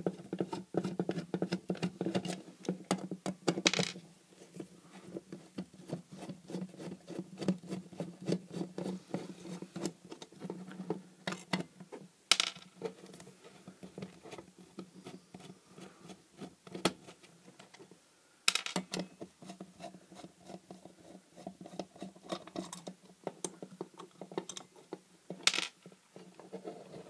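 Screwdriver working the screws out of the back cover of an LED floodlight housing: a stream of small clicks, ticks and scrapes of metal on metal, with a few sharper clicks as screws and parts are set down or knocked.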